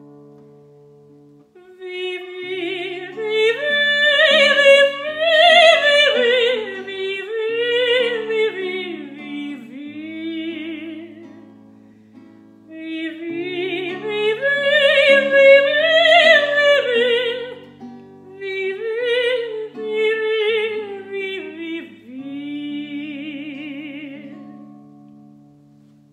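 A woman singing a vocal exercise on the syllable 'vi' in a classical voice with vibrato, sounding each note in its core and then swelling it in a crescendo, over her own guitar chords. Two long phrases rise and fall, then a shorter held note comes near the end.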